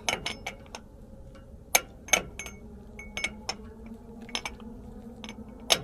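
Metal hub and brake parts clinking and tapping against each other and against tools: a dozen or so sharp, irregular clinks with a short ring, over a faint steady hum.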